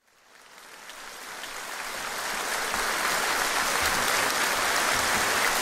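Concert-hall audience applauding, fading up from silence over the first few seconds, then steady.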